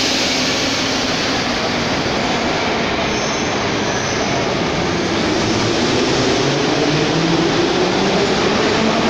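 Metro train arriving at the station platform out of the tunnel: a steady, dense rumble of wheels on rail that slowly grows louder, with a whine that rises in pitch over the last few seconds as the train comes in.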